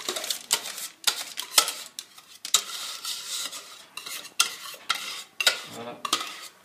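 A utensil scraping thick pastry cream out of a bowl onto baking parchment, with irregular scrapes and clinks against the bowl, several a second.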